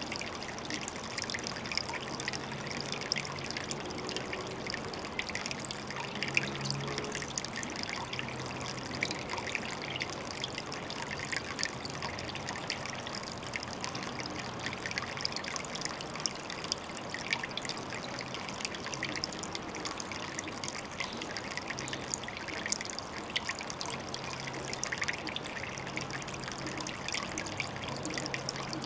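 Water trickling steadily at a pond, a continuous fine patter of small splashes.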